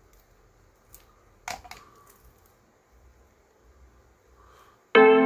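Quiet handling of a thick USB cable being uncoiled by hand: a light click about a second in and a sharper clack half a second later, then faint rustling. Background music starts abruptly near the end and is the loudest sound.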